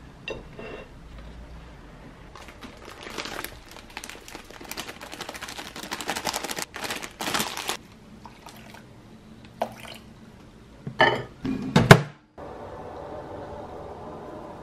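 Water poured from a plastic jug into a glass bowl of rolled oats, splashing for several seconds. It is followed by a few sharp knocks, the loudest sounds, about a second before a steady quiet hum sets in.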